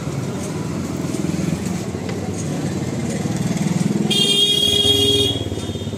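A motorcycle engine running steadily with a low pulsing rumble, and a vehicle horn sounding once for about a second, about four seconds in.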